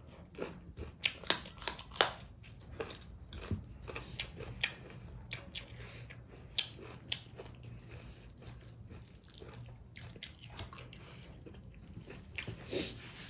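Close-miked eating: chewing and biting into a fish and tomato dish with stink beans, a run of short wet clicks and crunches. They come thick in the first few seconds, thin out in the middle, and pick up again near the end.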